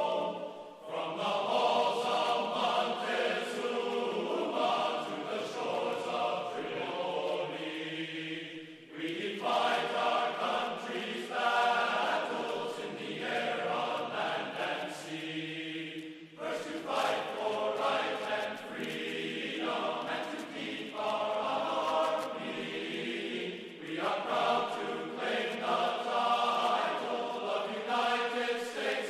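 Choral music: a choir singing slow, sustained phrases, each about eight seconds long, with short breaks between them.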